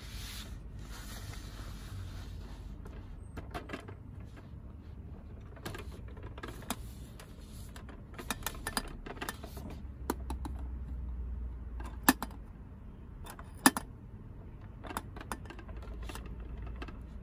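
Scattered light clicks and taps of plastic as a toy drink vending machine is handled and set in place by a gloved hand, with two sharper clicks in the second half, over a low rumble.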